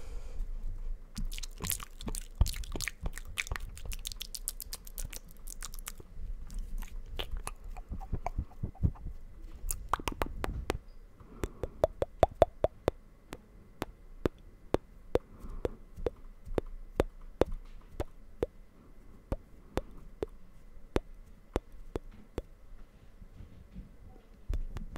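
Close-miked wet mouth sounds: sharp clicks and smacks of tongue and lips right at the microphone, in quick dense runs at first, then coming singly about once or twice a second.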